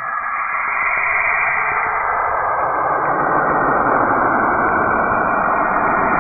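Space radio and plasma-wave emissions recorded by a NASA spacecraft and turned into sound: a dense, steady hiss that swells and spreads down into lower pitches over the first three seconds, then holds.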